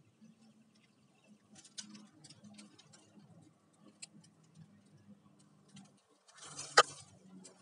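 Dry bamboo twigs and papery leaf sheaths crackling and rustling as they are pulled and broken away by hand. Near the end there is a louder rustle with one sharp crack.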